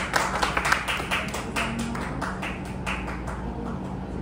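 A few people clapping. The claps are dense at first, then thin out and stop about three seconds in.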